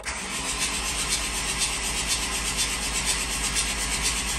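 Starter motor cranking a VW 1.9 TDI PD130 (ASZ) four-cylinder diesel with the glow plugs removed and the injectors disconnected, so the engine spins over fast without firing: a steady rasping run of rapid, even pulses. It is a priming crank to pump oil up to the top of the cylinders before the first start.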